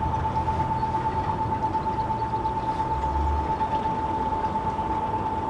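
Engiro electric propulsion motor driving a narrowboat along at a steady speed: an unchanging high-pitched whine over a steady rushing noise.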